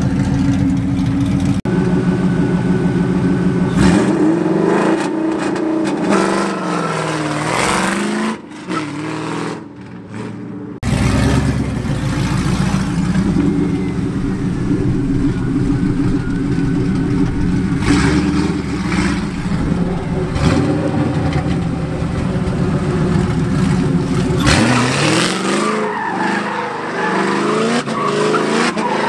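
Straight-piped 2002 Ford Mustang GT's 4.6-litre V8, with the mufflers deleted behind long-tube headers and an off-road X-pipe, revving up hard twice. It runs loud, rising in pitch a few seconds in, drops away briefly, holds steady for a long stretch, then revs up again near the end.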